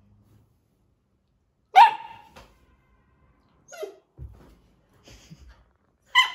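Labrador puppy barking: one loud bark about two seconds in, a smaller yelp near four seconds, and another loud bark at the very end.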